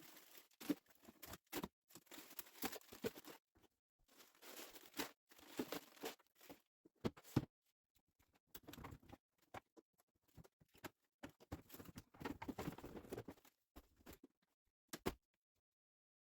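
Plastic freezer drawers being worked out of their slides: faint, irregular scrapes, knocks and rattles with short pauses between them.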